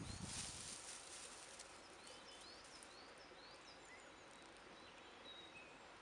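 Faint outdoor ambience with small birds chirping: many short, high, quick notes scattered throughout. A low rumble dies away in the first second.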